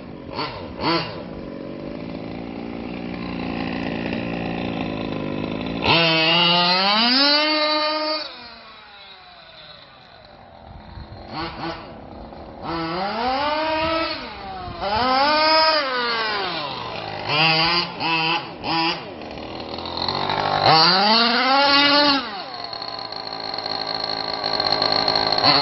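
Losi 5ive-T's 34cc reed-case two-stroke engine: a few quick throttle blips, a steady idle, then several long runs where the engine climbs high in pitch and falls back, with short blips in between.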